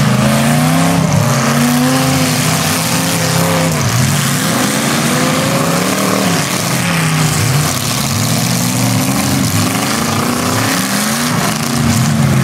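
Demolition derby cars' engines revving hard, the pitch swinging up and down again and again as the cars accelerate, back off and spin in the dirt.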